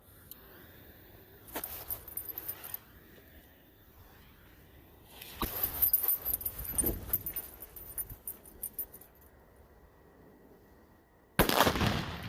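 Fireworks going off, crackling and fizzing in bursts: a short burst about two seconds in, a longer, louder one from about five to nine seconds, and a sudden loud burst near the end.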